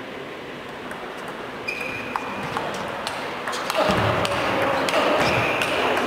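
Table tennis rally: the ball clicking back and forth off the bats and table at an irregular pace. From about four seconds in, spectator voices rise under the clicks.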